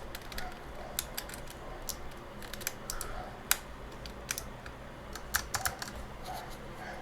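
Plastic keycaps being pressed back onto a computer keyboard's switches: a string of irregular sharp clicks and snaps, the loudest about three and a half seconds in.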